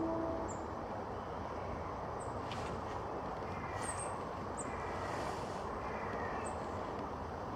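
Steady outdoor background rumble, with faint, short, high bird chirps now and then.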